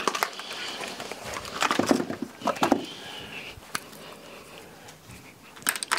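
Scattered light clicks and rustles of makeup products being handled: compacts, palettes and brushes.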